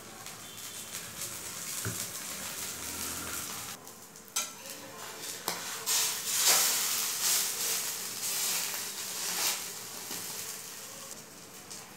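Egg dosa sizzling in ghee on a flat iron tawa, with a spatula scraping under it and turning it. The sizzling and scraping are loudest from about six to nine and a half seconds in, with a couple of sharp clicks of the spatula on the pan just before.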